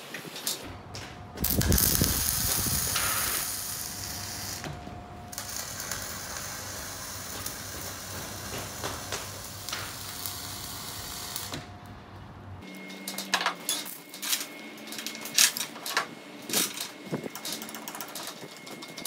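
A steady low machine hum with a hiss, loudest for a moment about two seconds in, that stops about two-thirds of the way through. A run of irregular sharp clicks and knocks follows, over a faint steady high tone.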